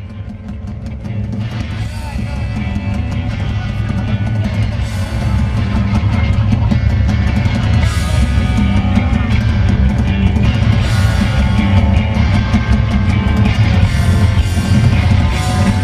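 Live rock band playing an instrumental intro on electric guitar, bass guitar and drum kit, fading up over the first couple of seconds.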